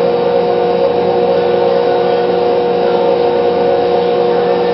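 Steady electrical hum of a battery charger running on its high engine-start setting, driving current through a homemade salt-water electrolysis (HHO) jar.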